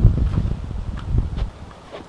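Wind buffeting the microphone: a low rumble that dies away about a second and a half in, with a few faint knocks.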